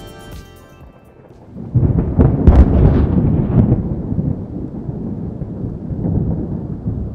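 Volcán de Fuego erupting: a deep rumbling boom breaks out suddenly under two seconds in, with a crackle at its onset, then rolls on and slowly dies down.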